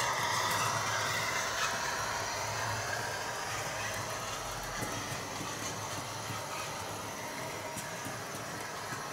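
HO-scale model train, a Piko NS class 1100 electric locomotive with DCC sound hauling a rake of coaches, running along the layout track. A steady rolling rumble and whir that eases off slowly as the train pulls away.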